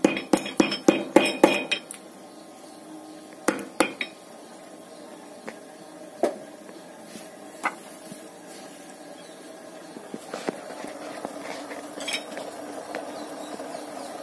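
Green cardamom pods being crushed with a wooden pestle on a wooden board: a quick run of sharp knocks in the first two seconds, then a few scattered taps and clicks. A faint steady hiss builds near the end.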